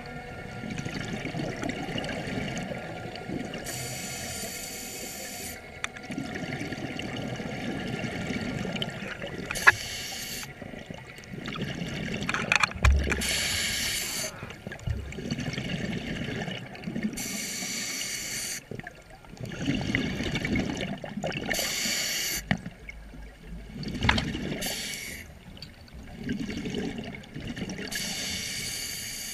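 Scuba breathing heard underwater through a regulator: exhaled bubbles rush out in bursts every three to four seconds, with a duller inhalation hiss between them.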